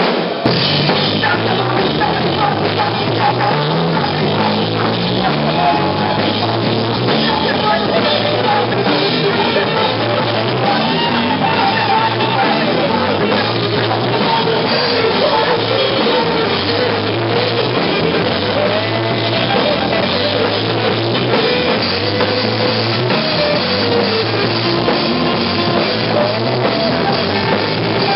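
Blues-rock band playing, with guitar, bass guitar and drum kit in a steady beat and a melody line that bends up and down over it.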